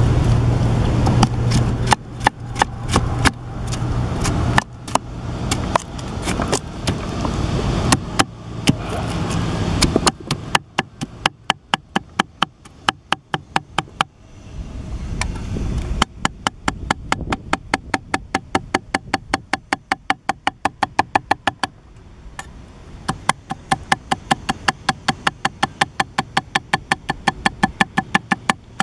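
Cleaver chopping green mango on a wooden chopping board. At first irregular knocks over a low rumble, then from about ten seconds in a steady chopping of roughly three to four strokes a second, with a brief pause about three quarters of the way through.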